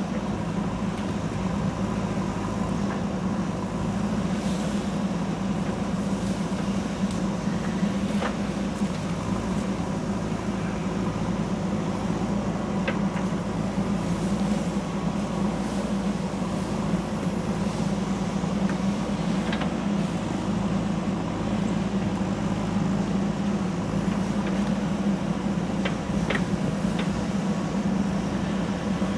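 JCB backhoe loader's diesel engine running steadily under work, with a few light clicks or knocks scattered through.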